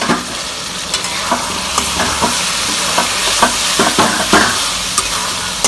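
Pumpkin cubes frying in oil in a metal karai, sizzling steadily, while a metal spatula stirs them with repeated scrapes against the pan, roughly two a second.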